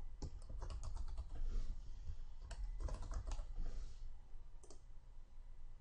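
Typing on a computer keyboard: quick, irregular key clicks in short runs, thinning out near the end.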